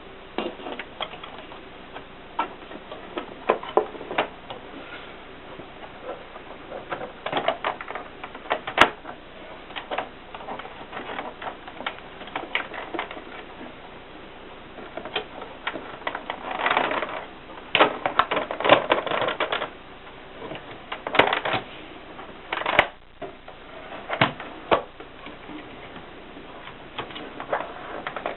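1960s Mercedes typewriter being typed on: irregular key strikes, with quicker runs of clacks a few times.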